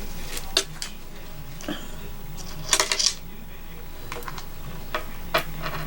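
Scattered light clicks and clinks of glass beads being handled on the beadwork, with a quick cluster of several about three seconds in.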